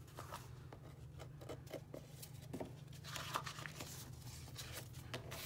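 Quiet hand-handling of punched paper pages and a metal binder ring on a hardback book cover: scattered soft clicks and paper rustles, a little busier about three seconds in.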